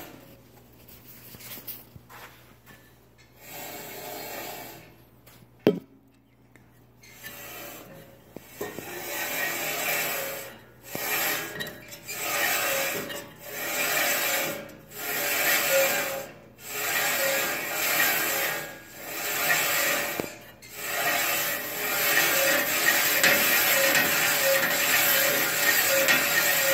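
Delta 28-380 bandsaw's blade and lower wheel running, with a noise that swells and fades about every one and a half seconds and then holds steady near the end. The blade is tracking back and forth on the lower wheel.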